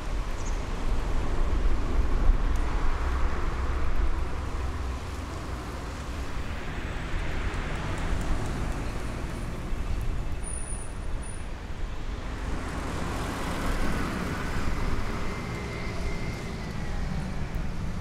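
Road traffic: a steady low rumble with vehicles swelling past every few seconds.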